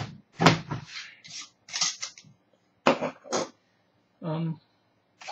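A container of green juice being shaken by hand in a series of short, noisy bursts, to remix juice that has separated.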